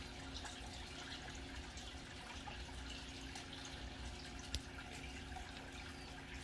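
Water in a koi aquarium trickling and dripping, with scattered small splashes and clicks over a low steady hum; one sharper click about four and a half seconds in.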